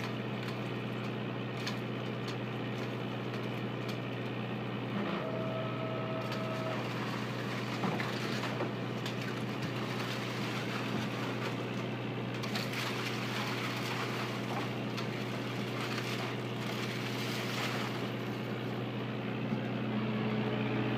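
Oyster work boat's engine running with a steady drone while a string of cultured oysters is hoisted out of the water. A brief high whine sounds about five seconds in, with scattered light clicks.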